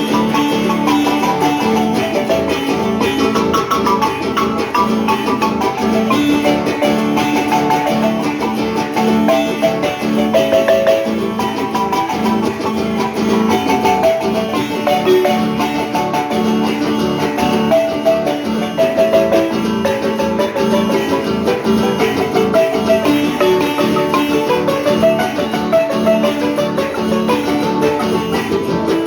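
Marimba playing a dance tune. Quick struck notes run over a steadily repeated bass figure.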